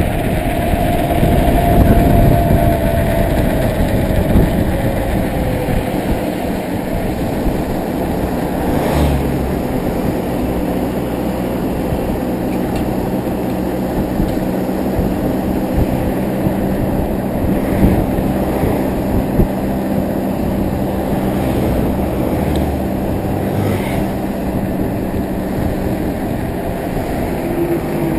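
Wind rushing over the microphone of a camera on a bicycle descending fast on asphalt, with the steady engine hum of a truck driving just ahead. There are a few short knocks along the way.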